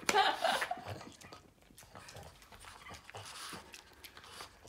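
Boston terrier snuffling and licking cake crumbs off a plate, with small wet licking clicks. A brief, louder voice-like sound comes in the first second.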